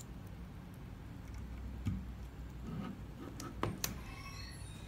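A few light clicks and taps of small plastic cable connectors being handled and plugged into a robot controller's port: one about two seconds in and a quick cluster of three near the end, over a steady low hum.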